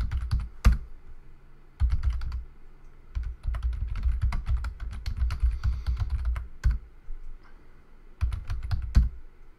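Computer keyboard typing: quick runs of key clicks in several bursts, with short pauses between them.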